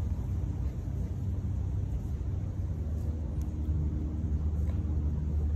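Steady low rumble of an idling motor vehicle engine, with a few faint clicks over it.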